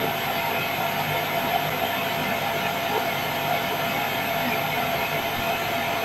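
Miele canister vacuum cleaner running steadily, its motor and suction making an even, unbroken noise.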